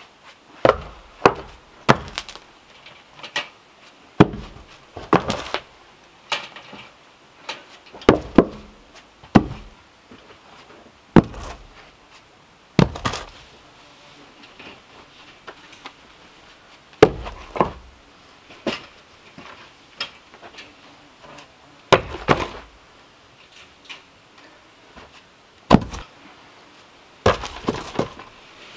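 Short rounds of seasoned ash cordwood thrown down one after another, knocking against each other and landing on sand: a string of irregular sharp wooden knocks, some in quick pairs.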